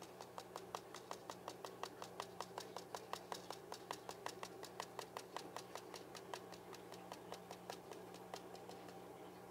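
Rapid light tapping on a paper seed packet, about six taps a second, vibrating the seeds out of it into a row; the taps grow weaker and stop near the end.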